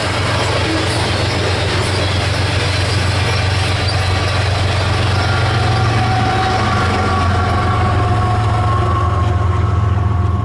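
Canadian Pacific freight train rolling past, a steady low rumble of wheels on rail, with faint squealing tones from the wheels in the second half.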